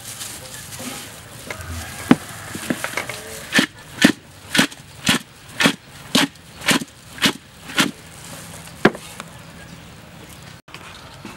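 Large aluminium basin being lifted and shaken, knocking and rattling with the woven bamboo sieve inside it: a few scattered clicks, then a run of about nine regular knocks, about two a second, and one more a second later.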